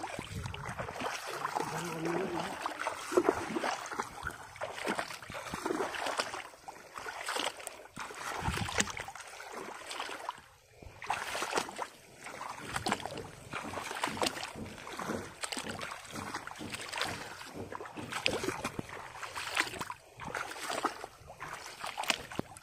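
Wading footsteps in shallow floodwater: irregular sloshing and splashing as the legs push through the water and rice stubble.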